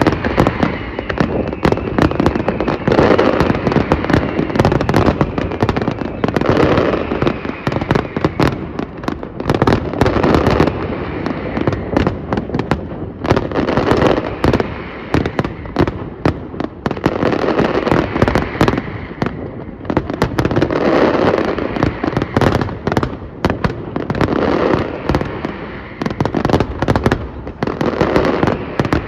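Large aerial fireworks display: a dense, continuous barrage of bangs and crackling shell bursts, several per second, with the heavier rumble of explosions swelling and easing every few seconds.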